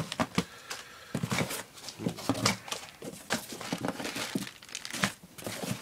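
Hands rummaging in a cardboard box, rustling and crinkling packaging as nylon gear is pulled out. The rustles come irregularly, with scattered light knocks.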